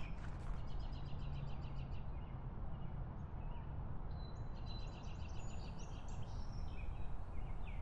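Small birds chirping in quick repeated series, one about a second in and another around five seconds in, over a steady low background rumble.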